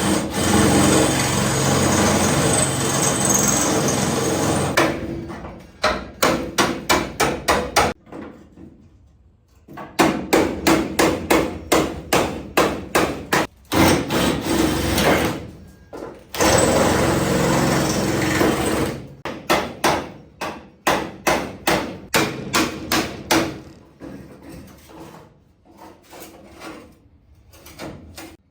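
A power hammering tool worked on the car body: long unbroken runs of rapid hammering alternate with short stuttering runs of separate strikes, about five a second, and the strikes grow fainter near the end.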